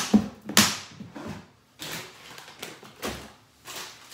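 Things being handled close to the microphone: a string of short rustles and knocks, roughly one every half second to second, the loudest a sharp swish about half a second in.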